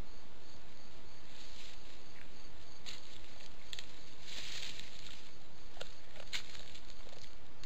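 Fallow deer buck grazing and shifting its feet in dry leaf litter: a few short crackles and rustles, with a longer rustle about halfway through, over a steady hiss.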